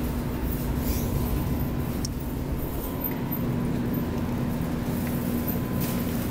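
A steady electrical hum with a constant low tone and a fainter higher tone, over a rumble of background noise.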